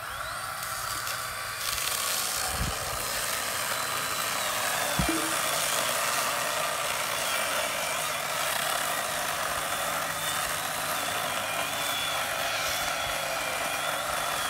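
Handheld power drill running steadily under load as it bores into a wooden dock post and its 2x6 bracing, with a couple of dull knocks in the first few seconds.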